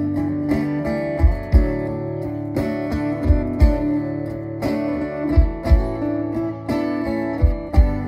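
Two acoustic guitars playing a slow song together through a PA system, picked and strummed chords, with low thumps coming in pairs about every two seconds.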